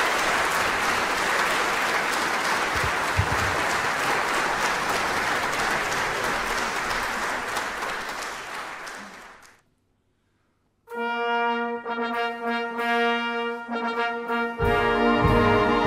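Audience applause that fades out about nine and a half seconds in. After a second of silence, a miners' brass band starts playing held chords, with lower instruments coming in near the end.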